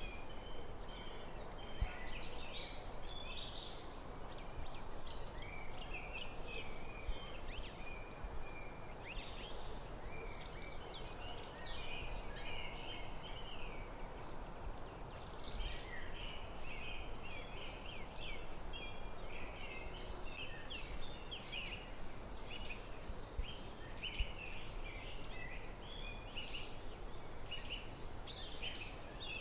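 Several birds singing in a forest, many short chirps and trills overlapping without a break, over a steady low background hiss.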